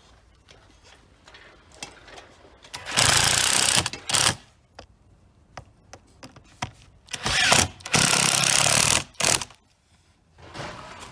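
Power drill run in short bursts: one run of about a second, then a longer run of a little over a second a few seconds later, each followed by brief blips of the trigger.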